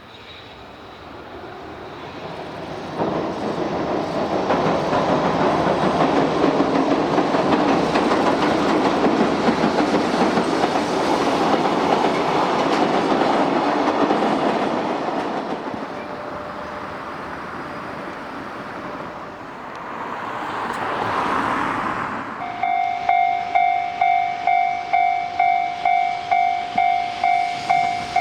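A train passing on the rails, its rumble building over the first few seconds, loudest for about ten seconds, then easing. About 22 seconds in, a Japanese level-crossing warning bell starts ringing in steady, evenly spaced strikes, about one and a half a second.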